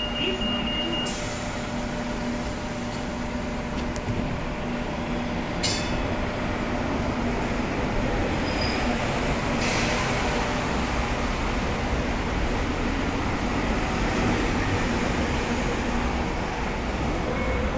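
Two-car Hong Kong Light Rail train (cars 1080 and 1207) pulling away from the platform: a steady electric hum under wheel and running noise that grows a little louder about seven seconds in as it gathers speed.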